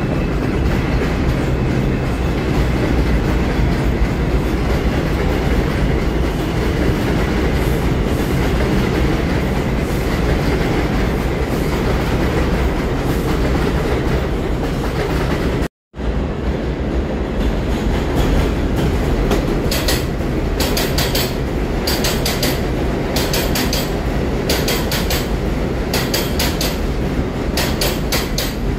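New York City subway trains running on elevated track: a steady rumble of an R62 train on the far track, then, after a brief dropout, an R142 train moving along the platform close by, its wheels clicking over the rail joints in a steady run of clacks.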